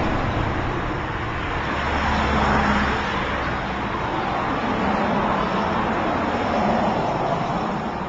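Steady rushing noise that swells and eases slowly over several seconds.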